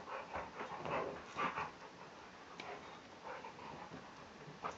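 Rottweiler–Tibetan Mastiff cross panting in short, irregular breaths while nosing into blankets on a bed, with soft rustling of the bedding. The sounds are strongest in the first couple of seconds and then turn faint and scattered.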